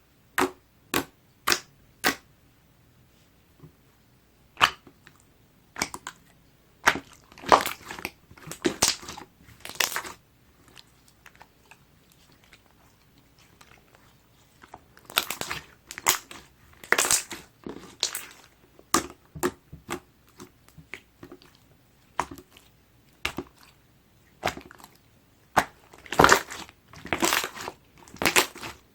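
Clear glue slime being worked by hand, with sticky clicks, pops and squelches. They come singly and in quick clusters, with a quieter pause partway through.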